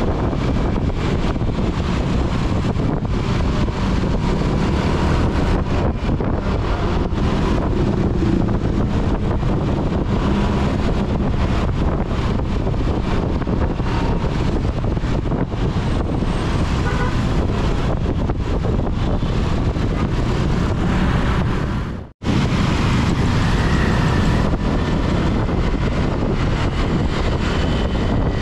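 Steady riding noise from a motor scooter in city traffic: wind buffeting the action camera's microphone, mixed with the engine and passing traffic. The sound cuts out abruptly for a split second about two-thirds of the way through.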